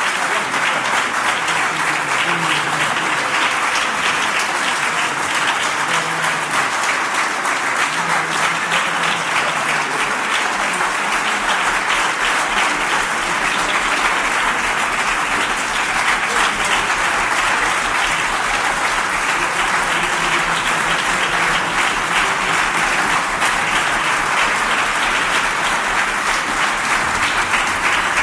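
Concert audience applauding steadily, a dense, even patter of many hands clapping.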